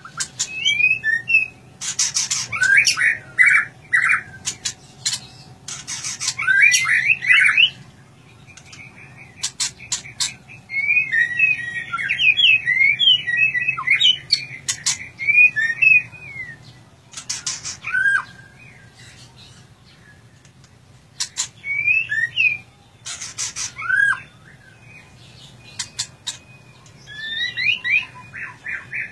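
Caged white-rumped shama (murai batu) singing: varied phrases of clear whistled notes mixed with harsh, scratchy notes, delivered in bursts with short pauses between them.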